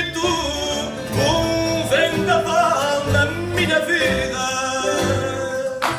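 Male fado singer's voice holding and ornamenting long notes, accompanied by Portuguese guitar, classical guitar and double bass. This is the close of the song; the music stops abruptly near the end.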